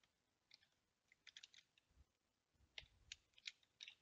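Faint computer keyboard typing: scattered keystroke clicks, some single and some in quick runs of three or four.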